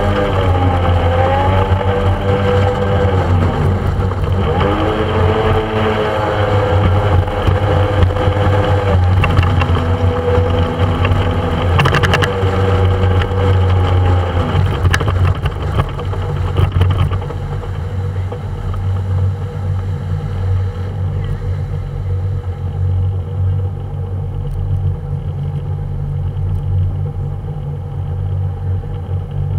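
A motorboat's engine running under way, its pitch rising and falling several times over the first half. It then settles into a lower, quieter, steadier drone for the rest.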